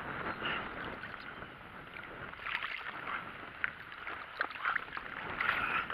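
Water splashing and sloshing beside a boat while a hooked fish is brought in, with scattered small clicks and knocks.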